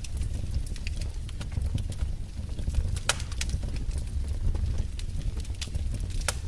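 Wood fire crackling: irregular sharp pops and snaps over a steady low rumble, with one louder pop about three seconds in and another near the end.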